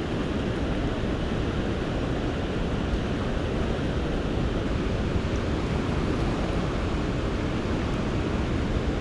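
Steady, even rush of fast river water churning out below a dam.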